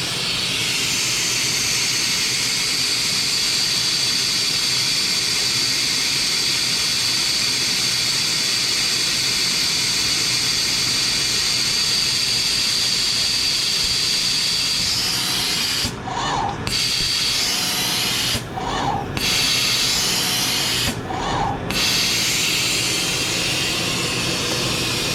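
Ultrasonic spray fluxer of an Electrovert Electra 500F wave solder machine spraying flux onto a circuit board: a steady, high-pitched hiss that eases off about fifteen seconds in. Later the hiss drops out briefly three times, each time with a short higher note.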